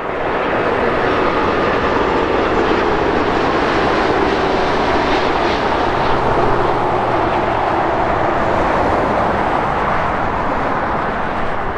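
Rolls-Royce Trent 700 jet engines of an Airbus A330-200 airliner coming in low on short final and landing. A loud, steady jet roar with a faint whine under it.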